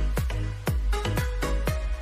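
Electronic dance music with a steady beat of about two strong beats a second over a sustained bass line.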